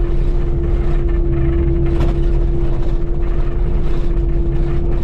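Kubota KX080 excavator's diesel engine running steadily, a low rumble with a steady high hum over it.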